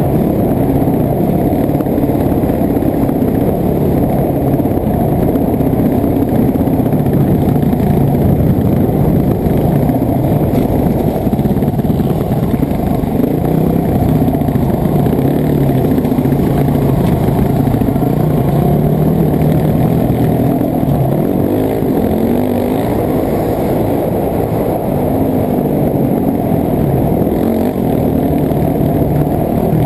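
Dirt bike engine running continuously under riding load, its pitch rising and falling as the throttle is opened and closed.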